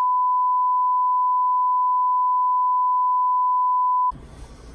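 Broadcast test-card tone: one steady, high-pitched beep held without change, which cuts off suddenly about four seconds in and leaves a faint room hum.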